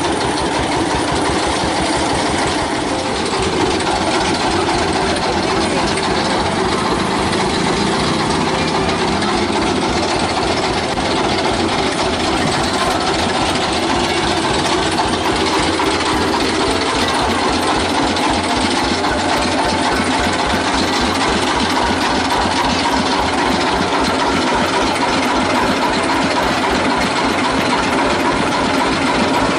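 The engine of a sugarcane juice cart running steadily with an even, rapid low beat, powering the cane-crushing rollers.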